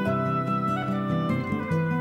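Instrumental background music: a melody of held notes that change pitch every half second or so, over lower sustained notes.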